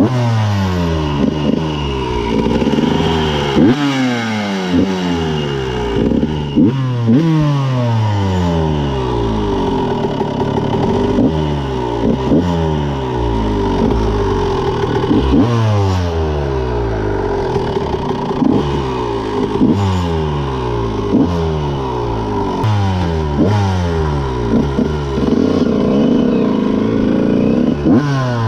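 1999 Honda CR125's single-cylinder two-stroke engine being blipped over and over, each rev rising sharply and falling back toward idle every second or so.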